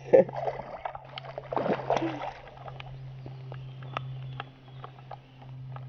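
Hooked pike thrashing and splashing at the water's surface, loudest in the first two seconds or so, followed by lighter water sounds and scattered small ticks.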